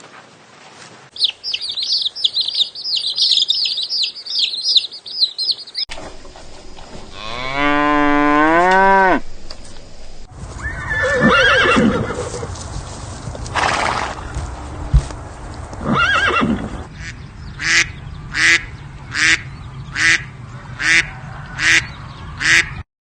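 A sequence of different animal calls cut one after another. First comes a high, busy chirping. Then one long low call rises and falls in pitch, followed by a stretch of mixed calls, and near the end a run of about seven short calls in steady succession.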